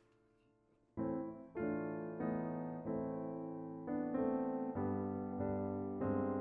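Background piano music, a gentle tune that starts about a second in, with notes and chords struck roughly every half second.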